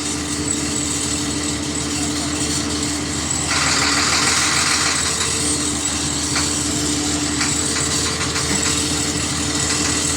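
An engine running steadily, with a constant hum under a broad hiss that gets louder about three and a half seconds in.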